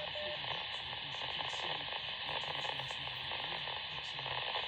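Radio static: a steady hiss and hum from a receiver with nobody talking on the channel, with a short pair of beeps right at the start.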